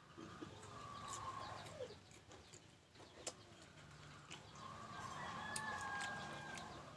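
A chicken calls twice in the background with faint, drawn-out calls, the first ending in a falling glide and the second longer, near the end. Faint crunching clicks of someone chewing green mango come in between.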